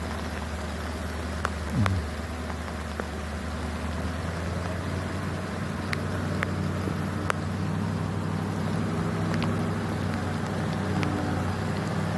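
Heavy truck's diesel engine labouring steadily as it climbs a steep dirt hill, growing slightly louder as it comes closer. Scattered sharp ticks of rain hit the phone, and there is a brief louder sound with a quickly falling pitch about two seconds in.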